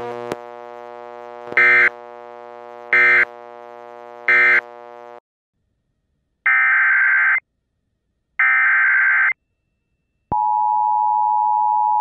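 Emergency Alert System tones. Three short end-of-message data bursts about a second and a half apart sound over a steady low drone, which then cuts off. After a gap of silence come two longer SAME header data bursts, and about ten seconds in the steady two-tone EAS attention signal starts and holds.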